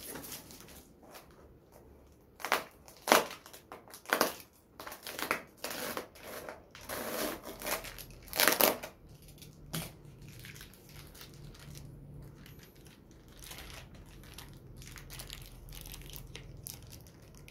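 Cardboard box flaps, a foam packing insert and a plastic-wrapped parts bag being handled during unboxing: a run of sharp rustles, scrapes and crinkles through the first nine seconds or so, then only faint handling.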